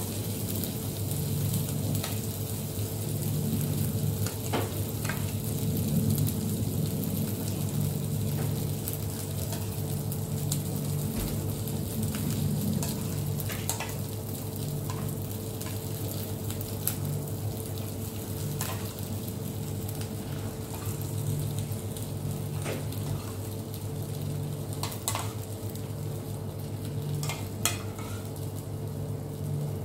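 Hollowed tomato halves sizzling in a frying pan as an egg mixture is spooned into them, with scattered light clinks of a metal spoon against a ceramic bowl. A steady low hum runs underneath.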